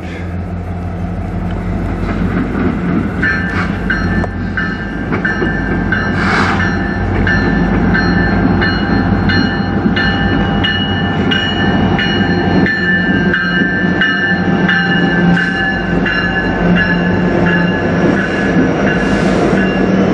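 Diesel-electric locomotives at the head of a freight train approach and pass close by. Their engine rumble grows louder over the first several seconds, then holds steady. High ringing tones join about three seconds in.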